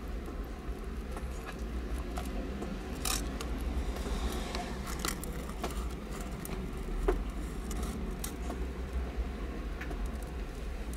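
Newborn kittens nursing at their mother cat: scattered small clicks, wet squishes and rustles as they suckle and shift in the bedding, over a steady low rumble. A slightly louder click comes about seven seconds in.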